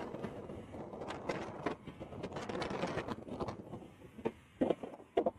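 Wind rushing on the microphone of a camera riding on a moving bicycle, fading away after about three and a half seconds, with scattered short clicks and rattles.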